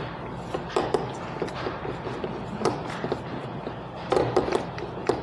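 A rolling pin with 3 mm thickness guides rolled back and forth over dough between acetate sheets: a soft rolling rub broken by irregular light knocks and clicks as the pin and sheets are handled.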